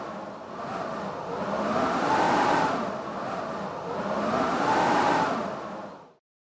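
Blizzard wind howling in gusts that swell and fade about every three seconds, each with a moaning pitch that rises and falls. The sound cuts out abruptly for a moment near the end, then returns.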